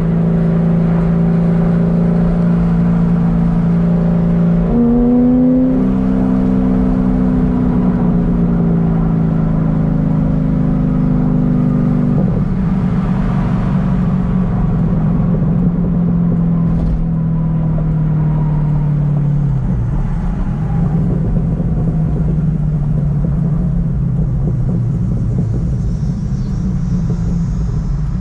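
Modified 2006 Corvette Z06's 7.0-litre LS7 V8 heard from inside the cabin while driving: a steady engine drone that steps up in pitch about five seconds in, then slowly sinks. After about twenty seconds it turns into a rougher, lower rumble mixed with road noise.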